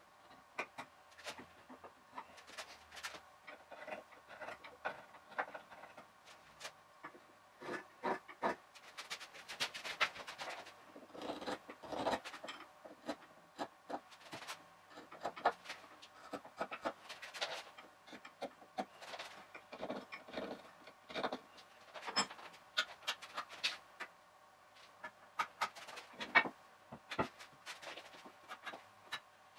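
Sped-up (4x) sounds of hand work on a wooden bench: a quick, irregular run of small knocks, taps and rubs of wood and pencil as the assembled bench is marked and handled.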